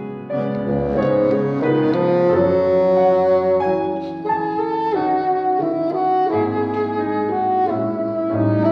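Bassoon and grand piano playing together: the bassoon carries a sustained, legato melody over a piano accompaniment.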